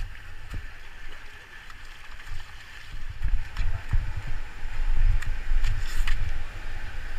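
River water rushing around a raft, with a heavy, uneven low rumble underneath and a few brief sharp sounds.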